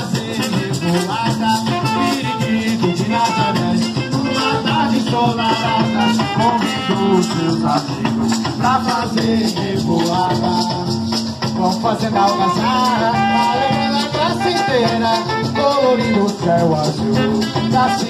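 Live carimbó band playing: hand drums and maracas keep a fast, even beat under a melody line.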